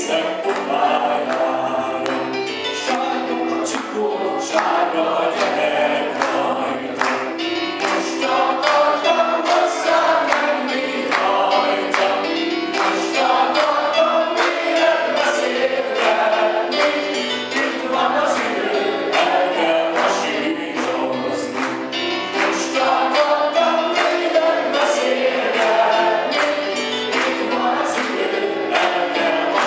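A man singing into a handheld microphone over backing music with a steady beat.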